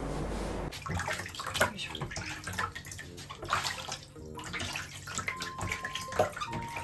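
A steady low hum cuts off under a second in and gives way to water running and splashing in a bathtub, with many small splashes and knocks.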